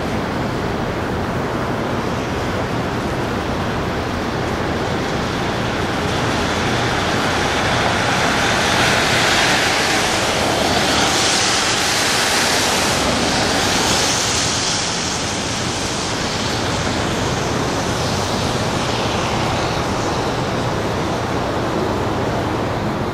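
Steady rushing roar of water in the Niagara gorge, from the river and falls, with a low hum underneath. It swells and turns hissier from about eight seconds in, for several seconds.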